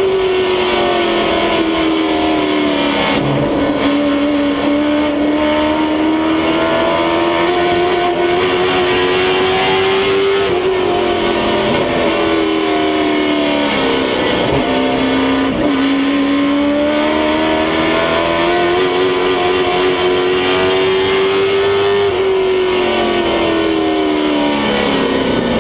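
Late model race car's engine heard from inside the cockpit at racing speed. The engine note drops three times as the driver lifts off the throttle and climbs again each time he gets back on it.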